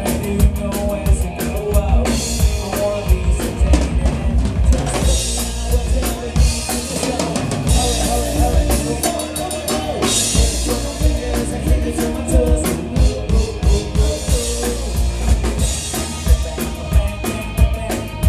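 Live rock band playing loud, drum-led music: a steady kick-and-snare beat with cymbal crashes every few seconds, over electric bass and guitar.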